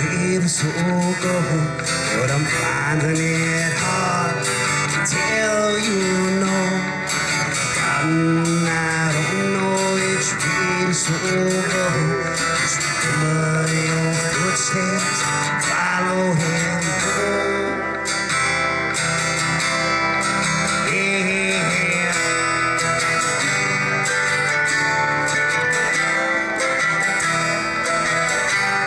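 Acoustic folk band playing live: strummed acoustic guitar with cello, mandolin, hand drum and harmonica.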